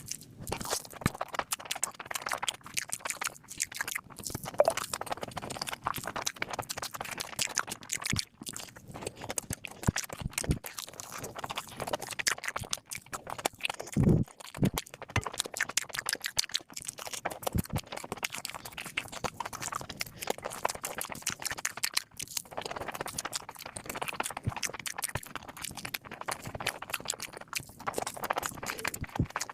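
Close-miked eating sounds: a person chewing and slurping food, a dense run of quick wet clicks and crackles, with a low thump about halfway through.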